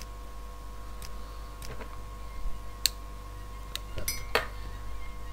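Computer mouse clicking about six times, in short sharp clicks spread unevenly over a few seconds, over a steady electrical hum with faint constant tones.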